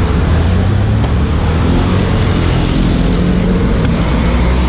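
Engines running close by in heavy roadside traffic: a steady low rumble with a hum under a wash of road noise.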